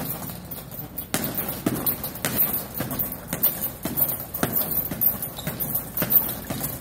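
Boxing gloves landing left and right hooks on a hanging heavy bag, a steady run of thuds about two a second.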